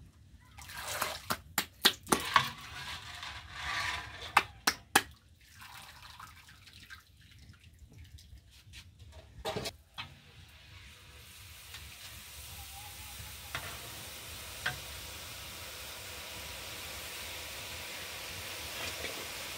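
Sharp clicks and clatter of jalebi batter being beaten by hand in a metal bowl over the first half. From about halfway, batter frying in hot oil in a large kadai gives a steady sizzling hiss that slowly grows.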